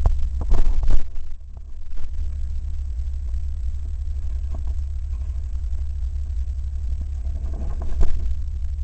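Off-road vehicle's engine running with a steady low rumble, with a few loud sudden bangs in the first second.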